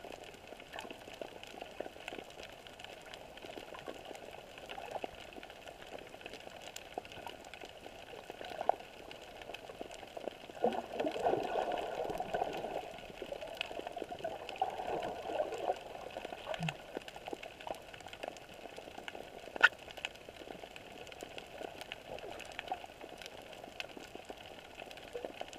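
Underwater ambience over a shallow rocky seabed, heard through a GoPro's waterproof housing: a steady crackle of small clicks and water noise. It grows louder and denser for several seconds in the middle, and a single sharp click stands out about three-quarters of the way through.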